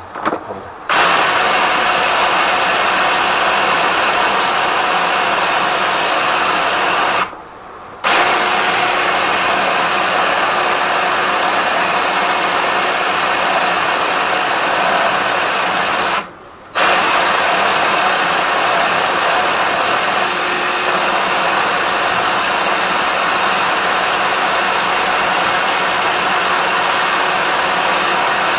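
Flexshaft drain-cleaning machine running steadily, its motor spinning the flexible cable inside a blocked drain pipe, with a high whine over the noise. The motor stops briefly and restarts three times: near the start, about a quarter of the way in, and just past halfway.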